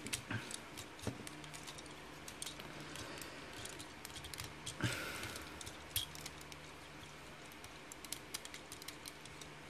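Small clicks and taps of a plastic transforming robot figure's parts being handled and pegged together, with a louder rustling scrape about five seconds in. A faint steady hum runs underneath.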